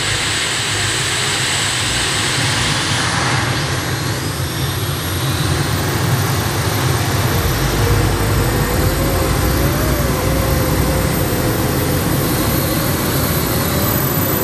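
Heavy modified pulling tractor running at full power: a loud, steady engine noise with a high whine that rises a step about three seconds in, and a deeper rumble that grows about halfway through.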